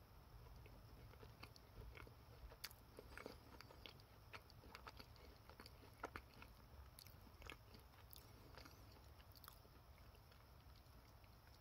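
Faint sounds of someone biting into and chewing a Beard Papa's choux cream puff: scattered small crackles and soft clicks of the flaky shell and creamy filling, mostly between about one and a half and nine and a half seconds in.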